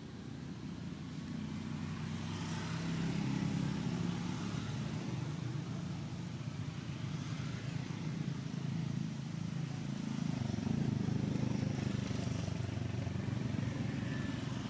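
Low engine hum of passing motor vehicles, growing louder about three seconds in and again about ten seconds in.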